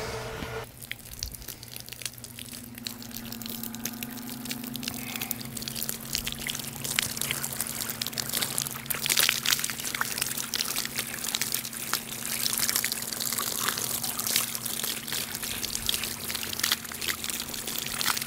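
Water splashing and trickling out of an open irrigation head as a newly installed PVC main is flushed, building up over the first few seconds and then running on unevenly. The flow is weak because every head on the line is open, over a steady low hum.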